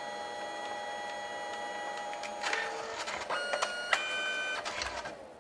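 Canon Selphy CP1300 dye-sublimation photo printer at work, its feed motor whining in steady tones as it lays down the final clear overcoat layer. About three seconds in, the motor steps through a quick series of changing pitches as the print is moved out of the slot, and the printer goes quiet near the end.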